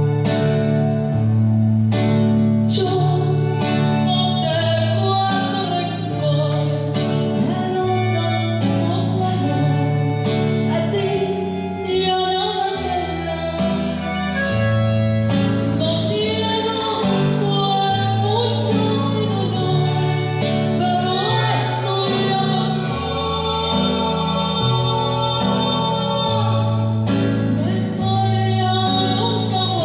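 A woman singing a ranchera in Spanish, with acoustic guitar and accordion accompaniment.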